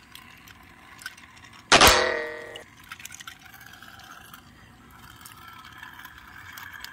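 A single sudden ringing clang about two seconds in that dies away within a second, with a few faint small clicks around it.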